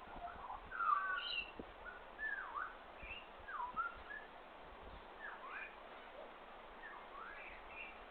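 Wild birds calling: short whistled notes that swoop down and up, coming in irregular groups, loudest about a second in, over faint outdoor hiss.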